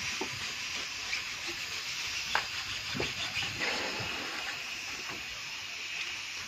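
A steady hiss, with a few sharp knocks about two and a half and three seconds in.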